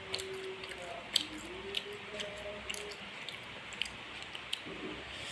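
A person chewing food close to the microphone: soft wet mouth clicks and squishes at irregular intervals, with a faint held tone in the background.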